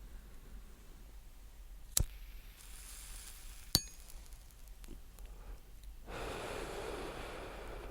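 Cigarette-smoking sounds: two sharp metallic clicks of a lighter about two seconds apart with a hiss between them, then a long breathy exhale starting about six seconds in.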